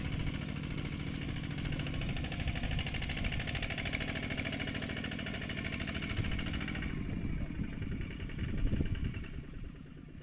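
ZT 155 tractor engine chugging steadily as it pulls a loaded trailer away, with a brief louder swell near the end before fading out.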